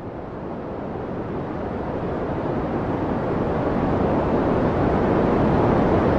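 A steady rushing noise that swells steadily louder and brighter.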